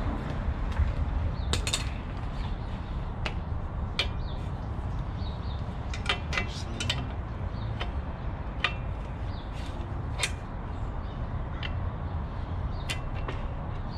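Irregular metal clicks and clinks from hand tools and bicycle parts being handled during a bike teardown, over a steady low rumble.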